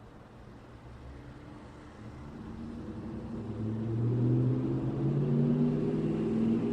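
A road vehicle's engine grows louder as it draws near over the first few seconds, then runs loudly with a steady hum whose pitch shifts slightly, over a background of traffic noise.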